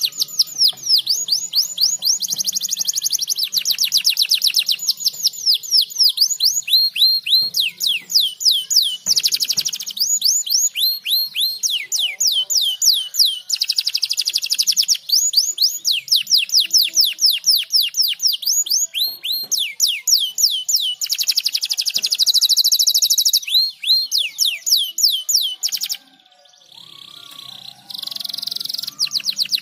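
Domestic canary singing: a long run of rapid repeated down-sweeping whistled notes and fast trills, changing from one repeated phrase to the next. The song breaks off abruptly near the end and resumes more softly after a moment.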